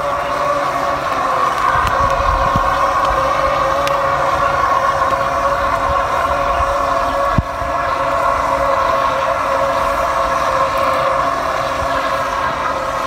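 Remote-controlled fishing boat's electric motor running with a steady whine, under a low gusty rumble of wind on the microphone. A single sharp thump comes about seven seconds in.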